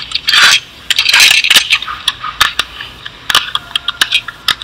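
Plastic LEGO bricks being handled and pressed together: a string of sharp clicks and clatter, with a couple of longer scraping bursts in the first second and a half.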